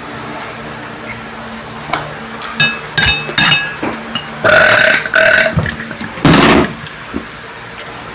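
A few clinks of a metal spoon on a ceramic bowl, then loud burping a little past the middle.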